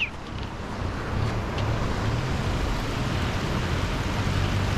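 Steady rush of a large river's flowing water, with a low rumble underneath.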